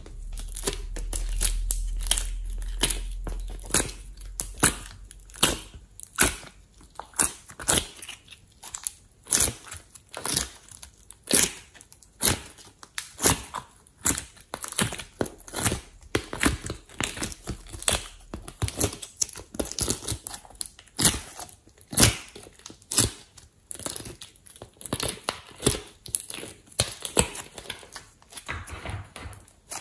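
Glossy slime being peeled out of the cells of a plastic ice-cube tray and squeezed by hand, giving a string of sticky, wet pops and crackles, about one or two sharp ones a second.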